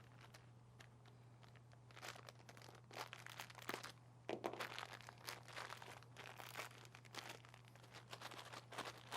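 Faint, irregular rustling and light clicks of oven-mitted hands fumbling with a SATA cable and PC parts, over a steady low hum.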